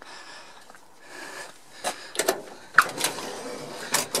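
The steel cab door of a 1989 Ford L8000 truck being unlatched and pulled open: a string of sharp clicks and clunks, the sharpest about three seconds in.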